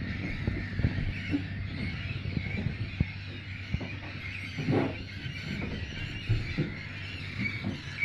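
A colony of black-headed gulls calling continuously, many birds at once forming a steady chorus.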